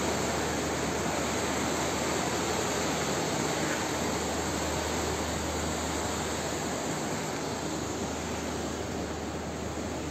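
Steady rushing noise of muddy floodwater running down a town street, with no break, easing off slightly near the end.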